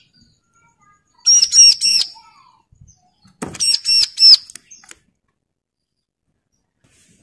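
Male bar-winged prinia (ciblek) calling: two loud bursts of three or four sharp, high repeated notes, about two seconds apart. This is the bird's agitated call at a rival.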